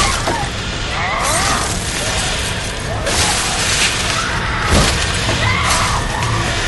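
Film sound mix of violent action: a series of sharp crashes and smashing blows, four or five over a few seconds, over a constant loud noisy din with gliding shrieking tones.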